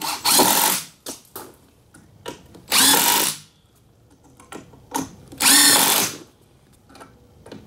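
Cordless drill driving screws into lumber in three short bursts, each under a second, with light knocks between them.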